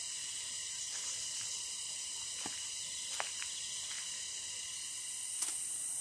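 Steady, high-pitched, unbroken drone of cicadas, with a few faint clicks.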